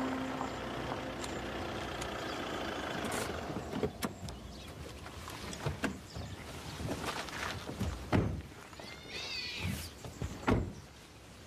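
Volkswagen Passat saloon coming to a stop on gravel, its steady running sound falling away about three seconds in. Then car door clicks and two heavy thumps of doors being opened and shut, the loudest near the end.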